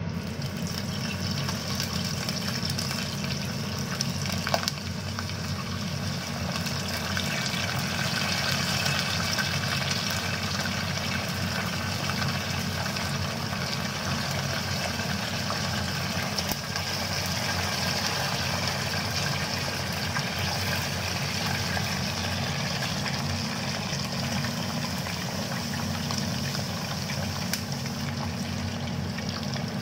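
Pandan-leaf-wrapped chicken parcels sizzling steadily as they deep-fry in a small saucepan of hot oil, over a low steady hum. A single sharp tap sounds about four and a half seconds in.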